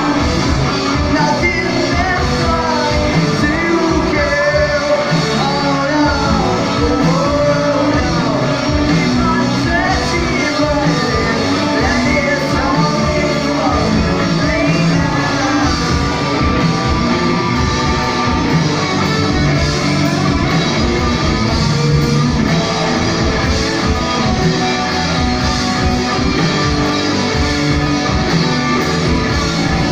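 Rock band playing live: electric guitars, bass and drums, with a lead vocalist singing over them mostly in the first half. The playing carries on loud and steady, with a held guitar note a little past the middle.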